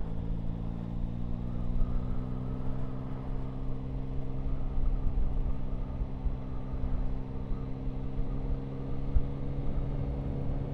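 Yamaha Tracer 9 GT's three-cylinder engine running at a steady cruise, its note rising slightly in the first couple of seconds and then holding, with wind rumble on the microphone.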